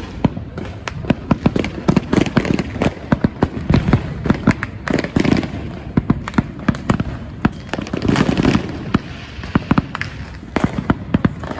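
Fireworks going off in quick, irregular succession: many sharp crackling pops over low booms, with no let-up.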